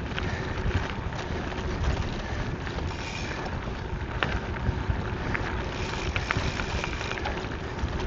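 Gravel bike rolling over a dirt and gravel trail: steady tyre noise and wind on the microphone, with scattered small clicks and rattles from the bike.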